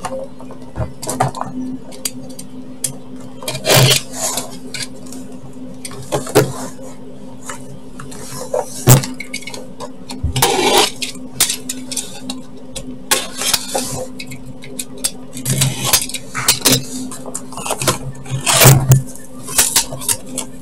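A cardboard box being opened by hand: its packing tape is cut and the flaps are pulled open, giving scattered scrapes, taps and rustles of cardboard. A steady low hum runs underneath.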